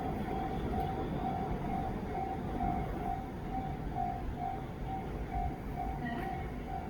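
Japanese level-crossing warning bell ringing: a single electronic tone repeating evenly about two and a half times a second, over a low steady rumble.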